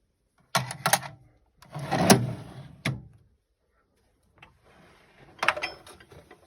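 Steel drawers of a 1940 Snap-on K260 tool chest being slid shut and open: sharp metal clacks under a second in, a sliding rasp ending in a click around two to three seconds in, and more clacks near the end.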